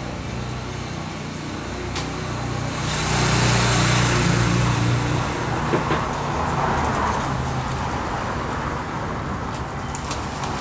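A motor vehicle passing by, its road noise and engine hum swelling to the loudest about three to five seconds in and then fading.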